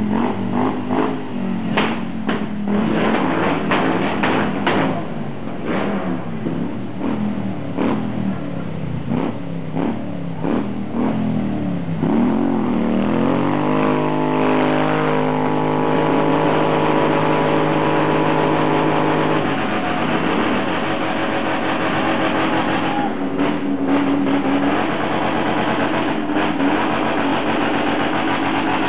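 Cruiser motorcycle engine revved hard during a burnout, rear tyre spinning on concrete. It revs in short, uneven blasts at first, then climbs in pitch to a steady high-rev run held for several seconds, drops off, and picks up again later.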